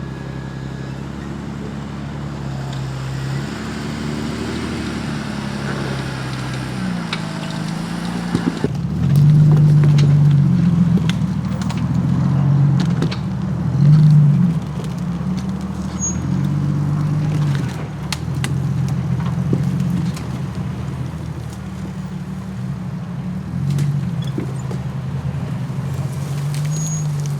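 Off-road 4x4's engine under load, its revs rising and falling in repeated surges as it crawls over an obstacle. It gets louder from about nine seconds in, peaking twice, with scattered clicks and knocks.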